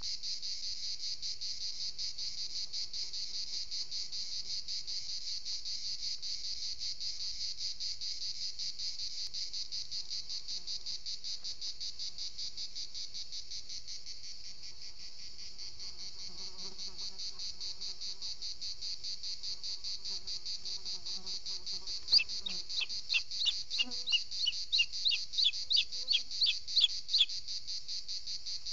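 Steady, finely pulsing chirring of insects. About 22 seconds in, a bird gives a quick run of about a dozen sharp, high calls, each falling in pitch, the loudest sounds here.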